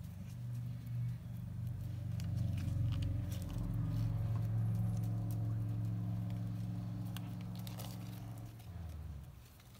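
A low, steady motor-like hum that swells over the first few seconds, slowly fades, drops in pitch near the end and then stops, with faint clicks and rustles of paper craft pieces being handled.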